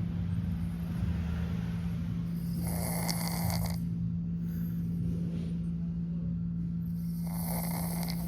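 Sleeping Persian cat snoring: two long, breathy snores about four and a half seconds apart, over a steady low hum.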